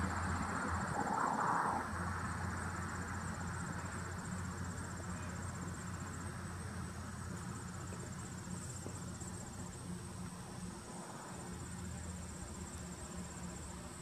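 Insects trilling in a fast, high-pitched pulsing chorus over a low steady hum, with a rumble fading away over the first two seconds.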